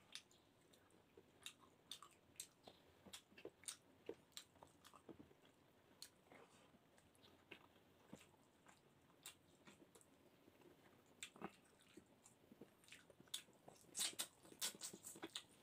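Faint mouth sounds of eating by hand: scattered clicks and smacks of chewing, with more of them near the end as a handful of rice and fish goes into the mouth.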